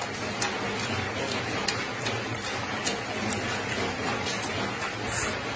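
Close-miked chewing and eating with chopsticks: irregular sharp mouth clicks, about one or two a second, over a steady hiss.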